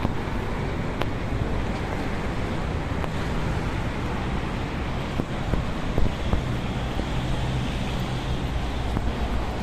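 Steady city traffic noise from a busy multi-lane road: cars and motorbikes passing with a low engine hum, and some wind on the microphone.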